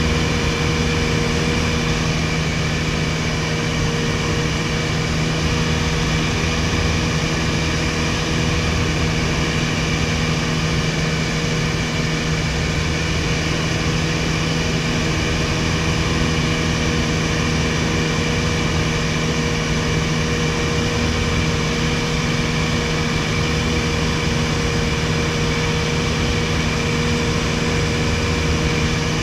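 A 1961 Piper PA-22-108 Colt's four-cylinder Lycoming O-235 engine and propeller droning steadily in cruise flight, heard from inside the cabin.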